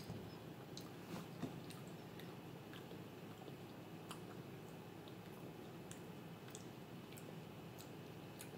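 Faint close-up chewing of a mouthful of soft rice pudding, with small wet mouth clicks scattered over a low steady room hum; a few clicks are stronger in the first second and a half.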